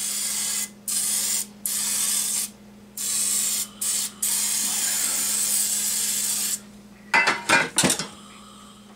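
Aerosol cooking-spray can hissing in several short bursts and then one longer spray, coating a small baking pan so the food won't stick. A few sharp clattering knocks follow near the end.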